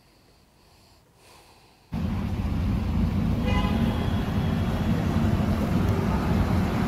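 Faint for about two seconds, then loud, steady traffic noise with a strong low end from vehicles on a flooded road, recorded on a phone. A short car-horn toot sounds about a second and a half after the noise starts, and the noise cuts off suddenly at the end.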